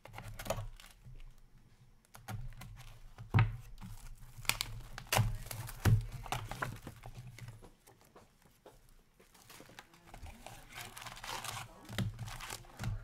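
Sealed box of Upper Deck hockey cards being opened: its wrapping tears and crinkles, with a few sharp snaps between about three and six seconds in and a burst of crinkling near the end.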